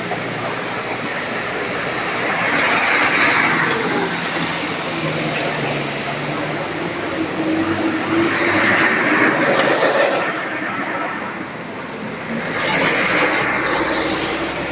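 Buses and a coach driving past close by on a busy road: engines running and tyre noise that swell and fade three times as each vehicle goes past, over a steady low hum of traffic.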